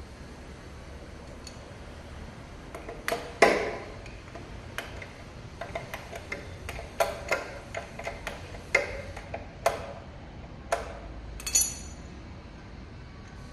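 Irregular metallic clinks and knocks of hand tools and small metal parts being handled and set down during wheel-motor repair work, the loudest about three and a half seconds in, a couple ringing briefly.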